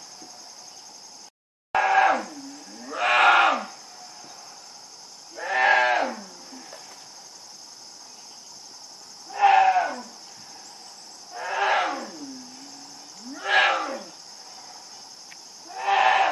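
Young American black bear bellowing for its mother: seven short calls spaced one to four seconds apart, each rising and then falling in pitch. The calls are the sign of a lost cub separated from its mother.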